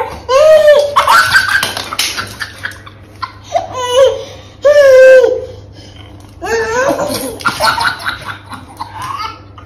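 High-pitched laughter in several bursts with short pauses between, loudest about half a second in and again around five seconds in.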